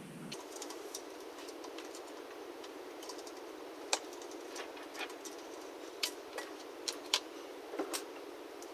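Scattered light clicks and taps, the sound of small parts and tools being handled while wiring a compressor's pressure switch, mostly in the second half, over a steady low background hiss.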